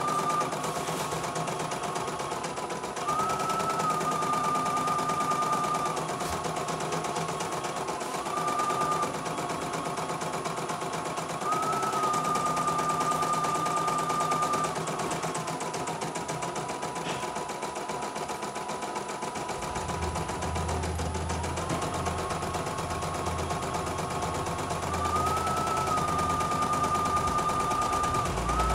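CNY E900 portable embroidery machine stitching a design: rapid needle clatter under a motor whine that steps up and down in pitch every few seconds.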